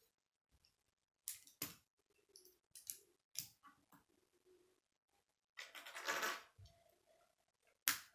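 K'nex plastic rods and connectors clicking and snapping together as pieces are fitted by hand, a few separate clicks early on, a longer rattle of pieces about six seconds in, and one sharp snap near the end.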